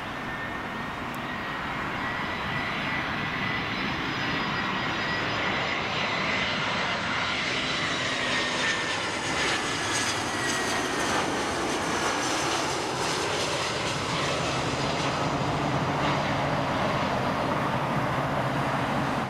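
Airbus A320's twin jet engines on landing approach, passing close: a steady rushing engine noise that grows louder over the first few seconds, with a whining tone that rises slightly and then falls in pitch as the aircraft goes by.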